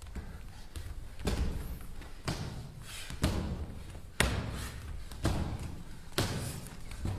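Heavy thumps at a steady pace of about one a second, each ringing briefly in a large hall.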